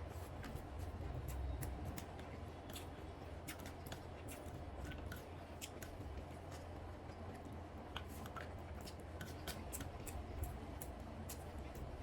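Close-up eating sounds of someone eating chicken biryani: many short, irregular wet clicks and smacks of chewing and mouth movement, over a low steady hum.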